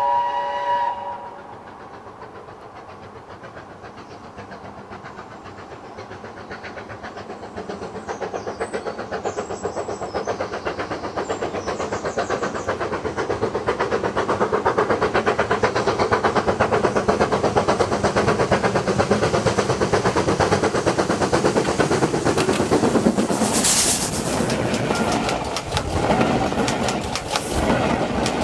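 Steam locomotive approaching along the track. A whistle dies away about a second in, then the engine's exhaust beats and rail noise grow steadily louder. Near the end there is a burst of hiss, and the wheels clatter as it runs over the rails close by.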